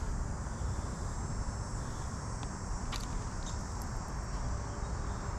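Steady low outdoor rumble with a few faint clicks around the middle.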